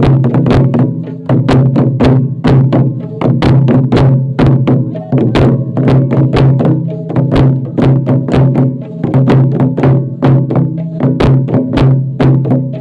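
Santali Mage Porob dance rhythm (susun tal) played on drums: fast, steady strokes repeating in short phrases over a steady low held tone.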